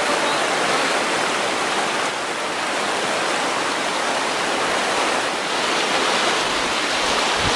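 Bright Angel Creek's fast white water rushing over rocks in a steady, unbroken hiss.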